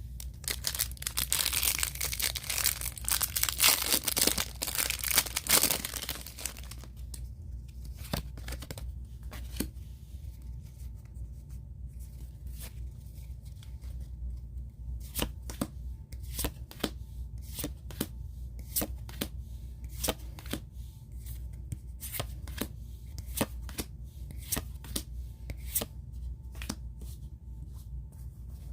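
A Pokémon card pack's wrapper being torn open and crinkled for about the first six seconds. Then the cards are handled one by one, each making a short sharp snap or flick at an uneven pace.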